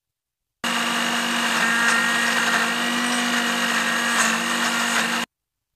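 Electric blender running at a steady speed, grinding a wet mix of radish, coriander and green chillies into chutney. It starts abruptly under a second in and cuts off shortly before the end.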